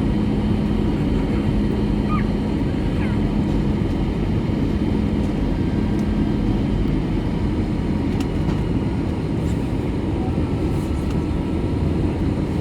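Steady engine and airflow noise inside the cabin of an Airbus A321 with CFM56 engines. A low steady hum drops out about halfway through.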